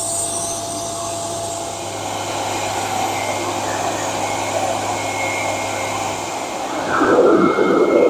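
RevAir reverse-air dryer running, its suction wand drawing a section of hair into the tube with a steady rushing of air, like a vacuum cleaner. The rush grows louder and rougher about seven seconds in.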